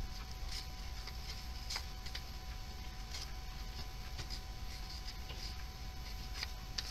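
Faint crinkling and creasing of printer paper as fingers fold in a small corner, a few soft scattered crackles.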